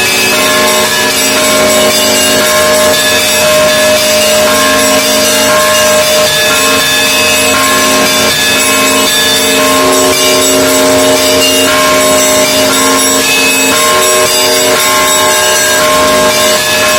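Russian Orthodox monastery bells ringing loudly together. Many bells of different pitches are struck over and over, their tones overlapping and ringing on in a dense, continuous peal.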